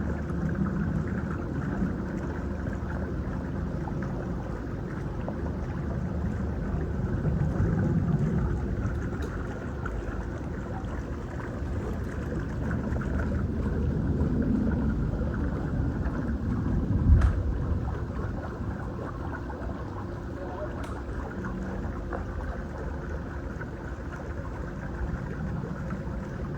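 A steady low engine running, swelling a little at times, with one sharp thump about 17 seconds in.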